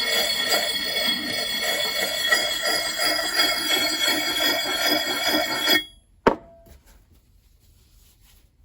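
Sharpening puck rubbed back and forth on a steel axe head in quick strokes, about three or four a second, with the head ringing with steady high tones. The strokes stop abruptly about six seconds in, followed by a single sharp click.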